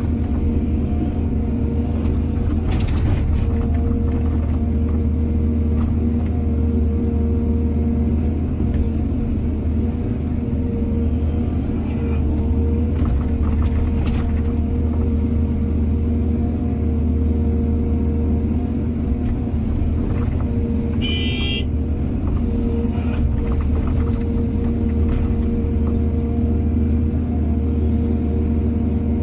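Excavator's diesel engine running steadily with a deep, even rumble while loading soil, with a few sharp knocks. A brief high pulsing tone sounds about two-thirds of the way through.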